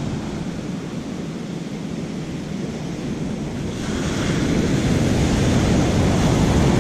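Ocean surf breaking and washing up the beach, with wind on the microphone; the rush of water grows louder about four seconds in as a wave runs up the sand.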